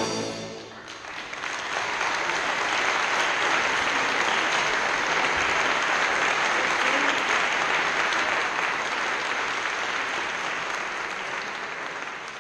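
Audience applauding at the end of a concert band piece. The band's last chord dies away in the first second, then the clapping builds, holds steady and begins to fade near the end.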